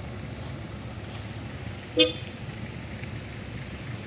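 A single short vehicle horn toot about two seconds in, over the steady low rumble of vehicle engines.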